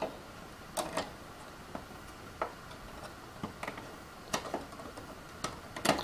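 Scattered light clicks and taps of a metal CPU cooler back plate being handled and fitted against the back of a motherboard.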